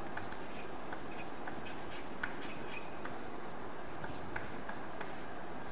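Chalk writing on a chalkboard: short, irregular scratchy strokes as a figure is written out.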